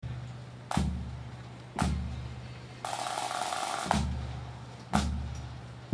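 Ceremonial marching drums beating a slow cadence: single strokes about once a second, each followed by a low boom that dies away. A snare roll of about a second fills the gap after the second beat.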